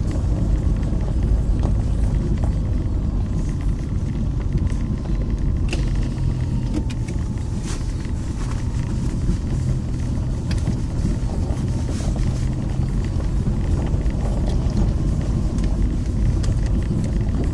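Car rolling down a steep loose-gravel road, heard from inside the cabin: a steady low rumble of tyres and engine on the gravel, with a few sharp clicks.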